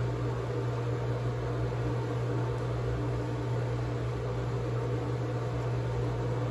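Steady low hum with an even hiss over it: the constant background noise of a room with a machine running.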